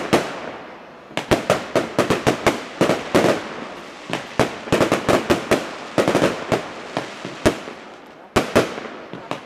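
Fireworks display going off in rapid volleys of sharp bangs and crackles, thinning to a few single bangs near the end.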